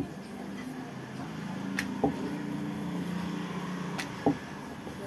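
Wooden rolling pin rolling oiled dough thin on a round wooden board: a low steady rumble, broken by a few light knocks of the pin against the board.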